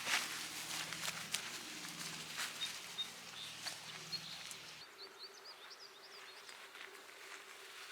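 Small birds chirping in short, high calls that grow busier past the middle. There are a few soft clicks early on and a faint low hum underneath.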